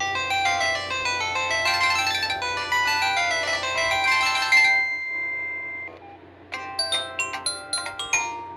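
Samsung SGH-T319 mobile phone playing polyphonic ringtones: a busy melody ends on a held note about five seconds in, and after a short pause a new tune of quick, chiming notes starts.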